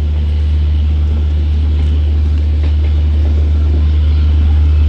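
Steady low diesel engine drone from a standing passenger train, holding an even pitch.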